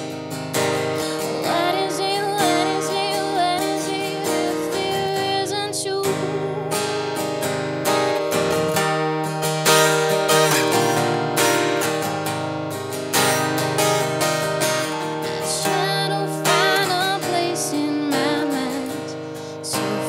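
Acoustic guitar strummed steadily through a song, with a woman's sung lines coming in now and then over it.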